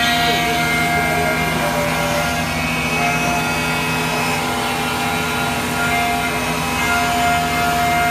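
CNC milling machine running, a steady machine hum with several held whining tones that change pitch every second or two.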